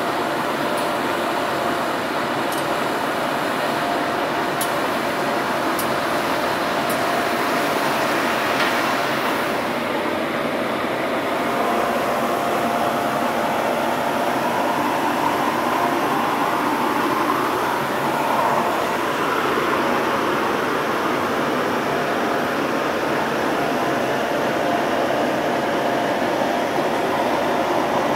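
Steady machinery noise of a river cruise ship running inside a concrete lock chamber, with a steady hum. About ten seconds in, a higher tone slowly rises and fades out again some ten seconds later.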